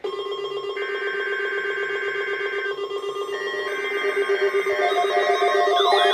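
Weather radio Required Weekly Test: bursts of SAME digital header tones, each about two seconds long, play over several steady electronic alarm tones. Near the end a fast warbling siren-like tone joins in and the whole sound grows louder.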